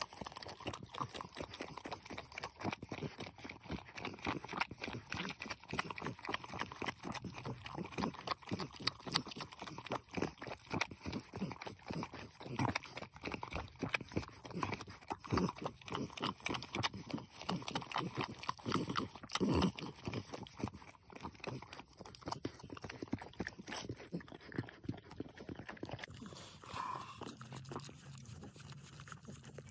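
XL Bully mother licking her newborn puppies clean: a dense run of quick, wet clicking licks several times a second, thinning out near the end.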